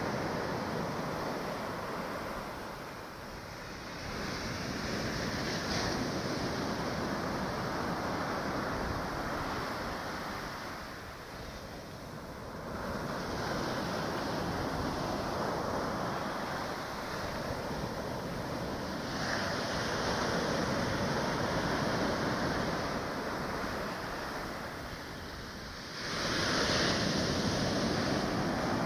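Ocean surf breaking on a beach: a continuous rushing wash that rises and falls as the waves come in, with the loudest surge near the end.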